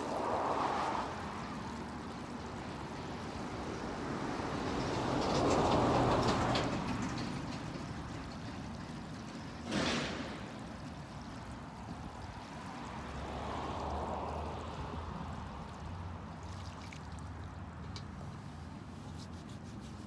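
Water poured slowly from a small metal bucket, splashing onto pervious concrete and soaking straight into the porous slab, as in a rough ASTM C1701 infiltration test. Passing road traffic swells and fades behind it, with one sharp clink about ten seconds in.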